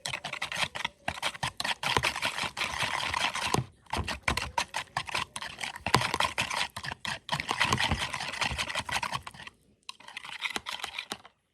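A utensil stirring ingredients in a mixing bowl: fast clicking and scraping against the bowl, with two short pauses before it stops near the end.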